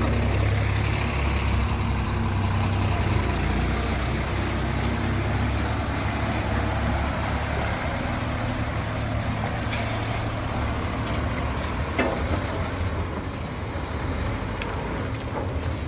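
Heavy vehicle's diesel engine running steadily with a deep, continuous sound, and a single brief knock about three-quarters of the way through.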